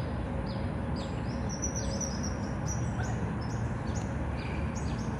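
Birds chirping: a run of short, high, downward-sliding chirps, two or three a second, over a steady low background rumble.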